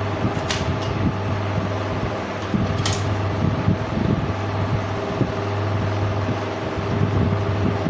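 Electric welding machine running, with a steady low hum and the whirr of its cooling fan. Two brief sharp clicks or scrapes, about half a second and three seconds in.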